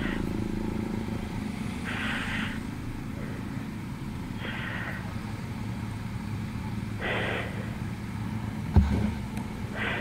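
Motorcycle engines running steadily at low revs. A short high-pitched sound repeats about every two and a half seconds, and a sharp thump comes near the end.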